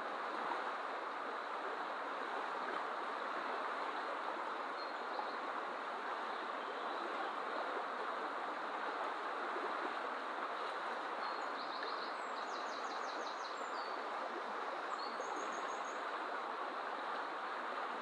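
Fast-flowing river rushing in a steady, even noise. A small bird sings a short, high, rapid trill about two-thirds of the way through, and a brief high call follows a few seconds later.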